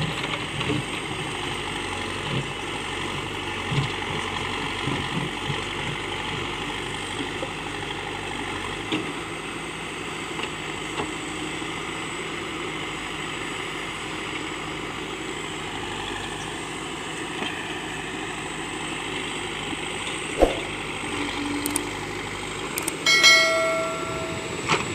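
Terex 740 backhoe loader's diesel engine idling steadily. There is a sharp click about twenty seconds in, and a brief pitched beep near the end.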